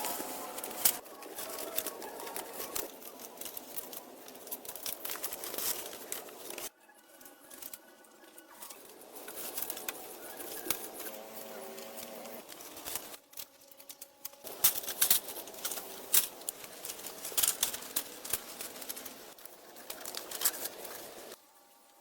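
Hand work on building materials: irregular sharp clicks and taps with rustling and crinkling, in several short segments that change abruptly.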